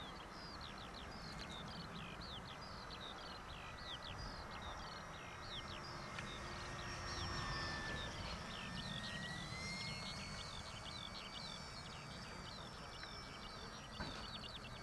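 Electric motor and propeller whine of a small radio-controlled FW190 model on a low pass. The whine swells in the middle, its pitch dipping and then rising as the throttle comes up. Throughout, birds chirp rapidly over a low rush of wind.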